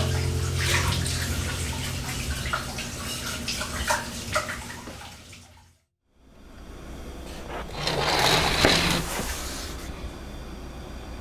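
Tap water running into a kitchen sink with short clinks of dishes, fading out about halfway through. After a moment of silence, a rush of noise swells and dies away.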